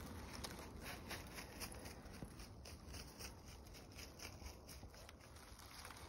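Faint, irregular rustling and crunching of dry fallen leaves underfoot, over a low steady rumble.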